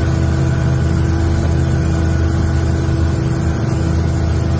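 Outboard motor of a small open boat running steadily at cruising speed, with hiss from wind and water.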